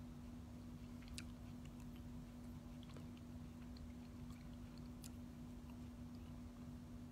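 Quiet background with a steady low hum and scattered faint clicks and lip smacks from a mouth close to the microphone.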